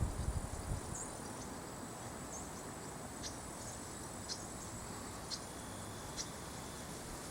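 Insects trilling with a steady high-pitched tone, with short high chirps about once a second. A low rumble fades out within the first second.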